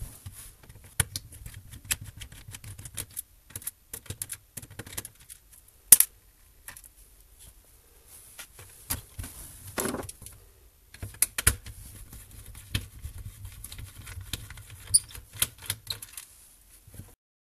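Irregular clicks, taps and light knocks of a screwdriver and hands on a laptop's plastic bottom case as its screws are removed and the laptop is handled. A loud knock comes about six seconds in and a short scrape near ten seconds.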